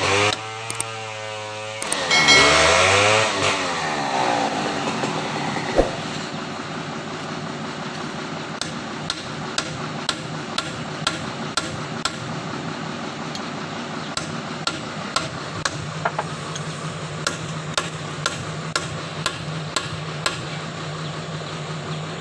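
Voices for the first few seconds, then a long run of hammer blows, about two a second, over a steady engine hum.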